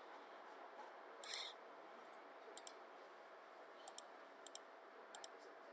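Computer mouse clicking: a handful of short, sharp clicks, most in close pairs, with one slightly longer scratchy click about a second in.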